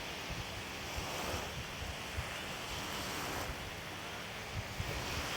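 Wind gusting and buffeting the microphone over the steady wash of wind-driven lake waves.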